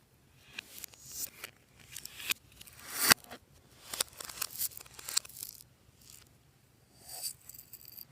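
Slime being worked and mixed by hand: a string of short, rasping, sticky noises, several of which swell and then stop abruptly, roughly one a second, with a quiet pause of about a second about two-thirds of the way through.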